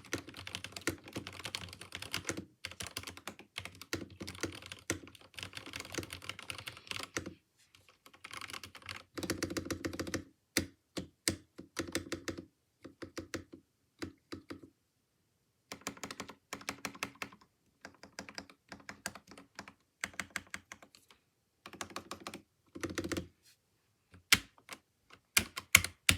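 Mechanical keyboard with lubed Gateron Yellow linear switches being typed on: a fast, steady run of keystrokes for the first seven seconds or so, then shorter bursts and separate single key presses with brief pauses between them.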